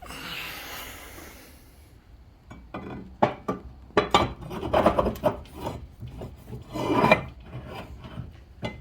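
Metal vise parts being worked and handled: a scraping rasp for about two seconds, then a run of sharp metal clanks, clinks and rattles as the pieces are knocked and fitted together.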